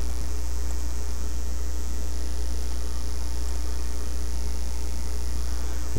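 Steady low electrical mains hum with a constant high hiss, unchanging throughout; no other sound events.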